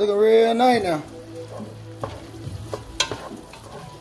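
Sliced onions and garlic sautéing in a nonstick pot: a steady sizzle, with the clicks and scrapes of a wooden spatula stirring. A man's voice sounds for about the first second.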